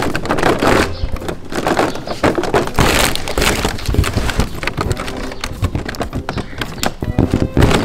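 Cardboard and paper crackling and tearing as fingers push and pry a perforated cardboard disc out of a punch board, in many irregular sharp crackles, loudest about three seconds in.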